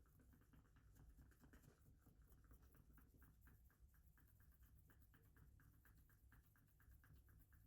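Near silence: a faint low hum with soft, rapid scratching ticks, about four or five a second.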